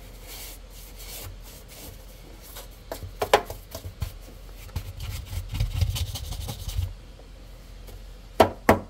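Bristle brush scrubbing dust off a speaker's rubber woofer surround and frame in repeated short strokes, with a few sharp taps, the loudest two near the end.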